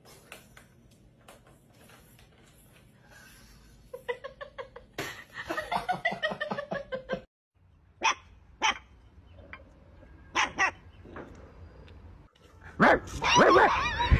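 Dogs barking: a quick run of yapping barks, then short sharp single barks in pairs, and a louder drawn-out call near the end.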